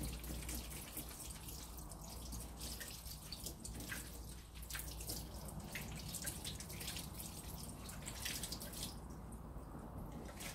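Water from a tap splashing and dripping, with many irregular sharp drips, dying away about nine seconds in.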